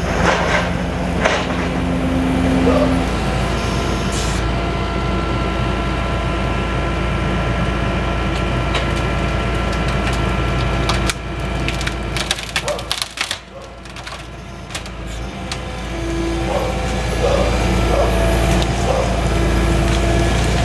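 Skid steer engine running with a steady hydraulic whine while its tree shears cut and crush a small tree, wood splintering and cracking. The machine quiets for a few seconds past the middle, with a run of sharp cracks, then picks up again.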